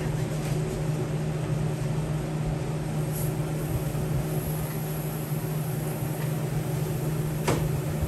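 Steady low hum of commercial kitchen machinery: ventilation and refrigeration units running. One sharp click about seven and a half seconds in.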